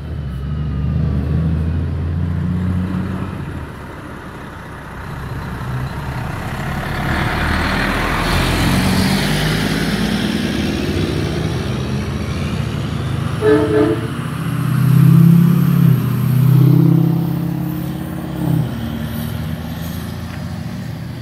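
Heavy-duty tow trucks' diesel engines rumbling past, one passing close about halfway through. Then a truck horn sounds: a short stuttered toot, two long low blasts, and a short one near the end.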